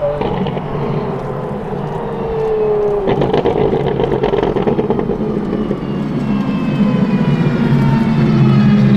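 Apollo Intensa Emozione's straight-piped, naturally aspirated V12 running hard. Its note changes abruptly about three seconds in, and it grows louder toward the end.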